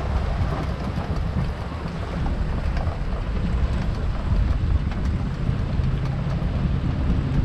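Steady low rumble of a moving vehicle's engine and road noise, with no distinct events.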